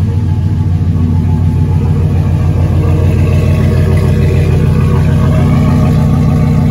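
Exhaust of a freshly rebuilt 6.0-litre LQ9 V8 idling steadily at the tailpipe, heard through a homemade muffler. The engine carries 5.3 heads and an LS6 cam.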